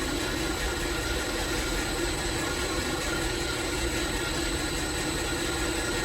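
Steady mechanical drone of a running machine, even in level, with a few constant whining tones over a broad rumble.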